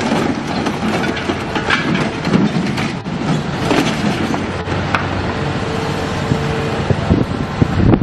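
Heavy machinery running, with irregular clanks and crunches of metal and a brief whine partway through.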